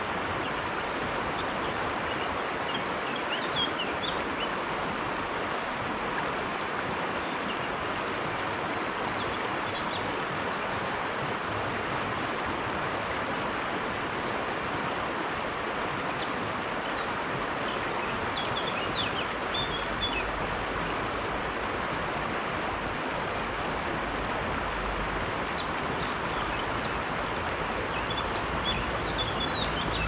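A river's water rushing steadily, with faint, short high chirps now and then.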